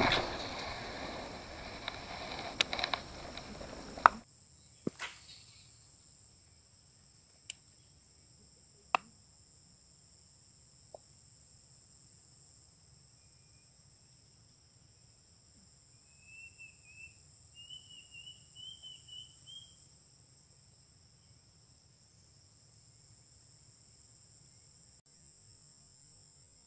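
For about the first four seconds, grass rustles and there is handling noise as the camera moves through tall grass; then it stops abruptly. A faint, steady, high-pitched drone of insects runs throughout, with a few isolated sharp clicks and, about two-thirds of the way through, a short run of chirps.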